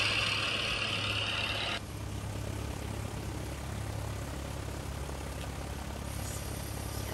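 LEGO Mindstorms airplane running its programmed animation, with a steady low mechanical hum from its propeller motor. A hiss plays over it for the first couple of seconds and then cuts off suddenly.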